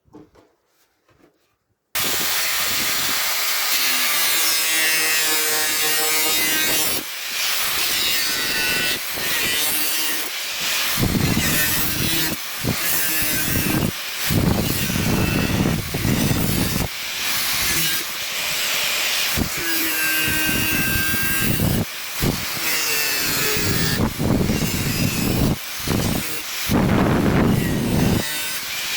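Harsh scraping, sawing-like noise of a tool working on material, starting suddenly about two seconds in and going on with many brief breaks.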